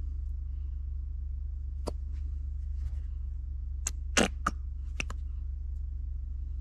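About six light clicks and clinks of a kitchen utensil against a container, the loudest a little past the midpoint, over a steady low hum.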